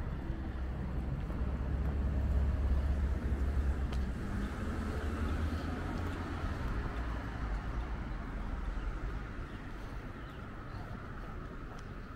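Outdoor city street ambience with a low rumble, loudest in the first few seconds and then easing, under a steady hiss. It could be passing traffic or wind on the microphone.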